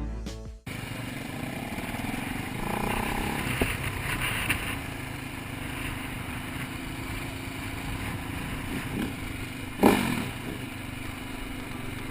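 Background music cuts off about half a second in, leaving dirt-bike engines running. A sudden thump comes near the end.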